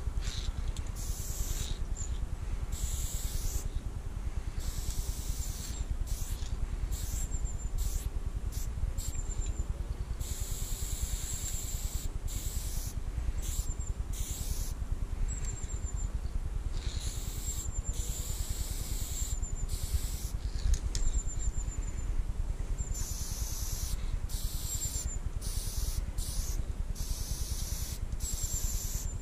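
Aerosol spray paint can hissing in repeated bursts, some quick taps and some held for a second or two, over a steady low rumble.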